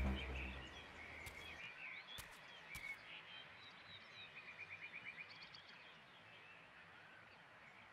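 Faint birds chirping, with a quick trill of evenly spaced notes about five seconds in and a few soft clicks; the sound dies to near silence near the end.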